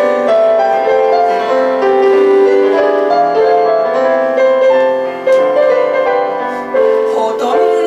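Digital piano played as a melody over sustained chords, in a continuous passage.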